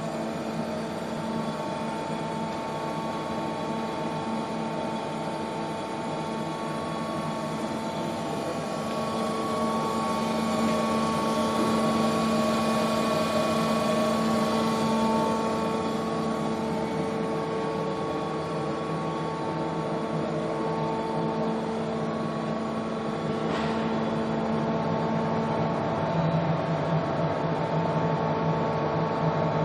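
Steady machine hum with several held whining tones that shift a little every several seconds, from a Mazak Super QT 10 M CNC turning and milling centre standing under power.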